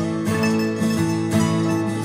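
Background music: a strummed acoustic guitar tune with a steady rhythm.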